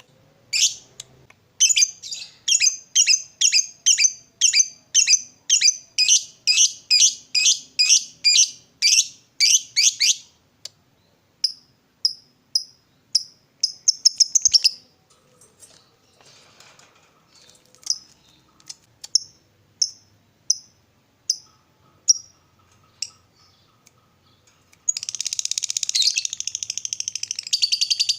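Lovebird calling: a long run of sharp, shrill chirps about three a second, then slower single chirps. About 25 s in it breaks into a continuous rapid chattering trill, the long 'ngekek'.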